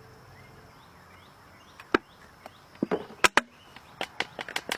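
A handful of sharp clicks and knocks, one about two seconds in and a quick cluster in the second half, from handling the oil bottle, funnel and tools while finishing an oil fill on a motorbike.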